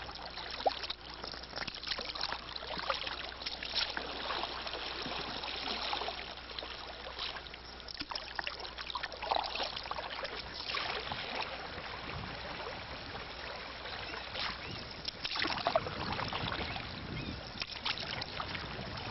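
River water splashing and trickling around a kayak as it moves along the river, with irregular splashes every second or two.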